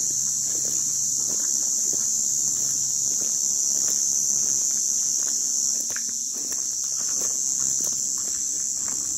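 A steady, high-pitched drone of cicadas in the scrub, with soft footsteps crunching on sand.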